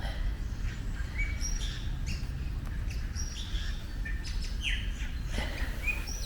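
Small birds chirping and calling in many short, quick notes, over a steady low rumble.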